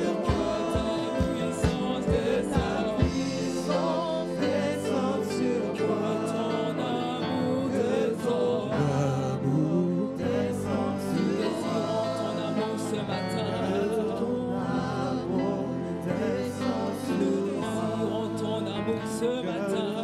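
Live gospel praise music: a worship band playing with singing voices over it, with a steady beat of drum strikes.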